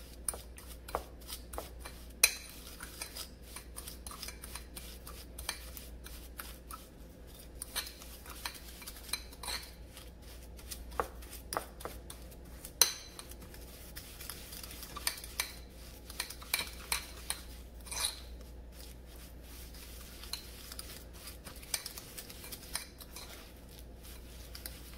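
Fork whipping instant coffee, sugar and cold water in a bowl by hand: fast, irregular clicking and scraping of the tines against the bowl, several strokes a second, with a few sharper clinks.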